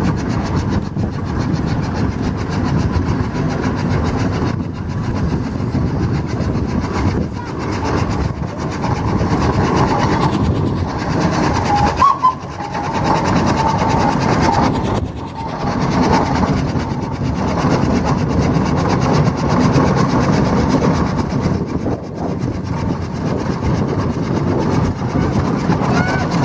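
Steam traction engine driving along near flat out, its exhaust beating fast and evenly.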